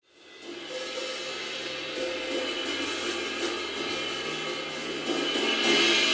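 Drum kit being played, mostly on Sabian hi-hat and cymbals, with light drum hits underneath. It fades in from silence at the start and grows louder about five seconds in.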